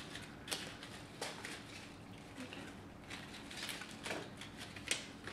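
Lemon leaf (salal) stems being stripped by hand: a handful of sharp, irregular snaps as side shoots are broken off, with leaves rustling between them.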